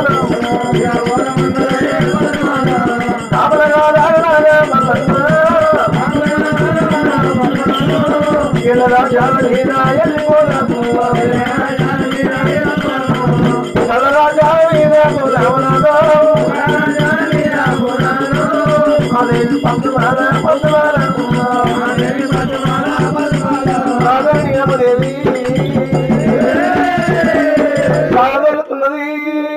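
Oggu katha folk music: voices singing a wavering melodic line over fast, steady beating of the oggu, a small hourglass drum, with a rattling percussion accompaniment.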